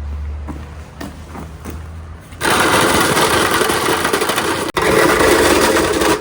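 Water rushing along a marble-run course with glass marbles rattling in it, starting suddenly about two seconds in; before that only a low hum with a few light clicks.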